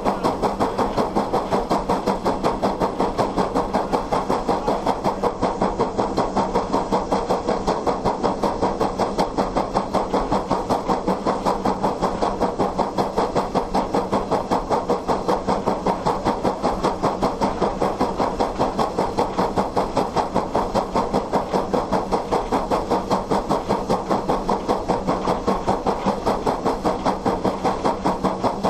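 Steam locomotive exhaust ("stack talk") from Hammond Lumber Co. No. 17, chuffing in a rapid, even beat as the engine works steadily along the track, heard from right beside the boiler.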